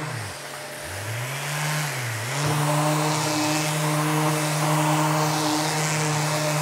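Electric random orbital (eccentric) sander running while sanding an oak board with 180-grit paper. Its hum falls sharply in pitch and climbs back twice in the first couple of seconds, then holds steady.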